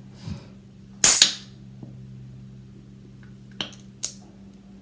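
Sharp cracks and clicks from an aluminium beer can being handled. The loudest crack comes about a second in, with a short hissing tail, and two smaller clicks come near the end, over a steady low hum.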